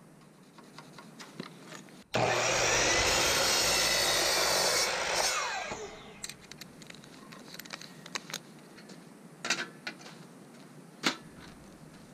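Power miter saw starting up and cutting through a 2x4 for about three seconds, then the blade winding down with a falling whine. Scattered knocks and clicks of wood being handled follow.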